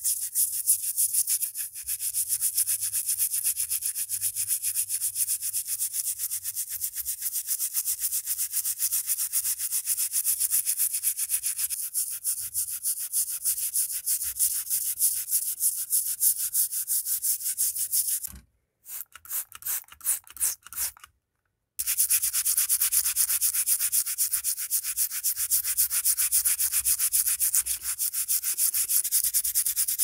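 Stiff brush scrubbing rapidly back and forth over a wet, rusty pocket knife blade, scouring off rust and dirt in soapy water. The steady scratching breaks off about 18 seconds in into a few separate strokes and a second of silence, then picks up again.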